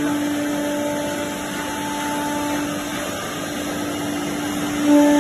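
Four-head CNC wood router cutting a panel: a steady spindle whine over the noise of the cut, growing louder near the end.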